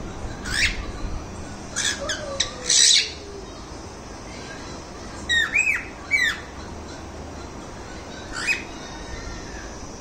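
Pet cockatiels calling: a string of short squawks and chirps with pauses between them. The loudest is a harsh squawk about three seconds in, followed by a few arched chirps and one last short call near the end.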